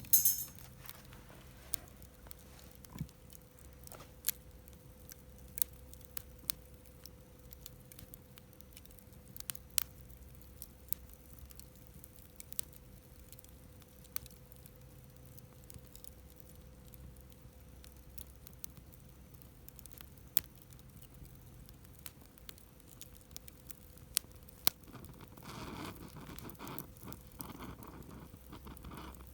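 Wood campfire crackling, with scattered sharp pops and snaps every second or so. Near the end, a rougher rushing noise joins for a few seconds.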